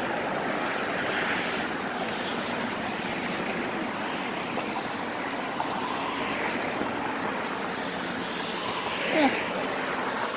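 Road traffic noise from cars passing on the adjacent street: a steady hiss of tyres and engines that swells and fades as vehicles go by, with a brief louder sound about nine seconds in.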